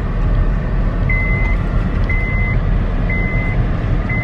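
Steady low rumble of a car in motion, with a high electronic warning beep starting about a second in and repeating once a second, each beep about half a second long.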